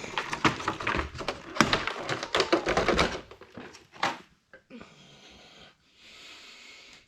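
Stapled cardboard box and plastic packaging being pulled open by hand: a quick, irregular run of clicks, taps and thunks for about three seconds, then a single knock about four seconds in over faint hiss.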